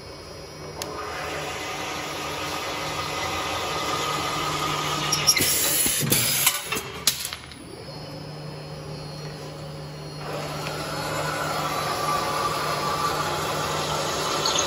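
Double-end tapping machine cutting threads into steel rebar couplers: a steady machine hum with cutting noise that builds over two tapping cycles. Between the cycles, about six seconds in, a short hiss and a few clicks.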